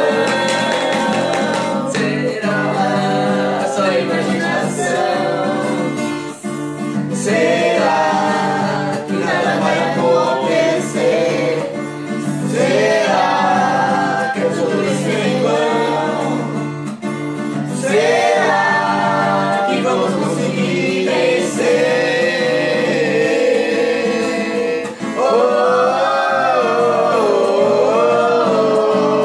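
Several people, men and a woman, singing a song together to a strummed acoustic guitar.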